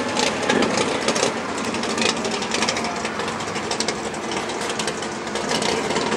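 Drag racing car engines at full throttle during a side-by-side pass down the strip, a steady, rapid rattling drone.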